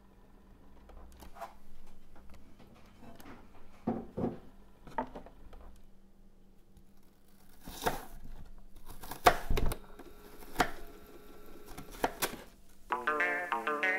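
A kitchen knife cutting an onion against a wooden cutting board: scattered sharp knocks and crisp slicing clicks, the loudest stroke about nine seconds in. Rhythmic Latin-style music starts near the end.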